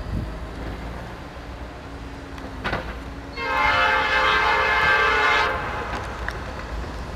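Diesel freight locomotive's air horn sounding one long blast of about two seconds, a steady chord of several notes that starts and stops abruptly, over the low rumble of the train running.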